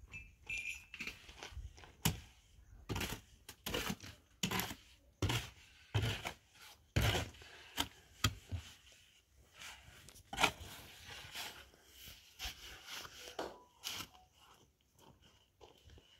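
Irregular short scraping and tearing strokes mixed with sharp knocks, a few a second, busiest in the middle and thinning out near the end.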